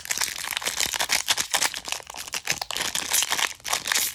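Foil Pokémon booster-pack wrapper crinkling and crackling in quick bursts as it is handled and torn open.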